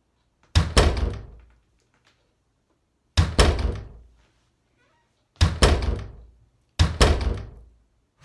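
Four sets of heavy thuds, each two or three quick blows close together that die away over about a second, spaced a couple of seconds apart.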